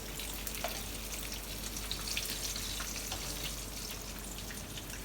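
Crumb-coated chicken fillets sizzling in hot frying oil: a steady hiss with frequent small crackles and pops.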